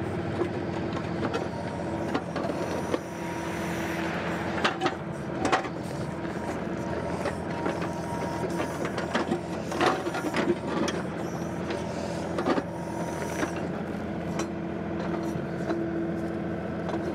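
John Deere 2038R compact tractor's three-cylinder diesel engine running steadily under hydraulic load as the backhoe boom pushes on the ground to shift the tractor. A few sharp metal knocks from the backhoe linkage and bucket are heard along the way.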